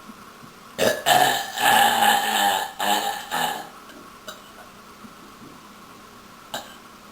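A woman's long, loud belch, starting about a second in and lasting nearly three seconds, breaking into several pulses as it goes. A short sharp click follows near the end.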